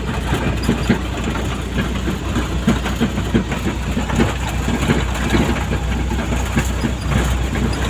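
Vehicle engine running steadily while driving over a rough dirt road, heard from inside the cab. Many uneven rattles and knocks from the cab and load sit over a low engine hum.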